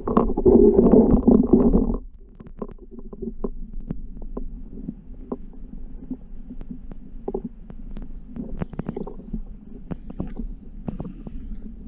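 Creek water heard through a camera's underwater housing: a muffled low rumble, loud for the first two seconds, then a quieter drone with scattered sharp clicks and ticks.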